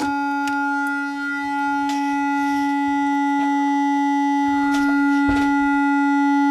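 Loudspeaker on a home-built class B transistor audio amplifier, fed a sine of about 300 Hz from a signal generator, giving a steady, fierce tone full of harsh overtones. The sine wave is not amplified properly: it is distorted and the driver stage is oscillating.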